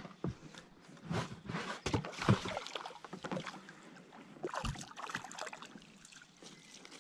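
A small hooked fish splashing at the surface beside an inflatable boat as it is brought to a landing net, with irregular splashes and knocks from the handling, the loudest a little over two seconds in.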